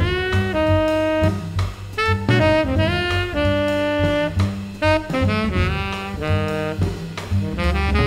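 Jazz quartet playing: a saxophone carries the melody in a mix of held notes and quick runs, over a drum kit keeping time.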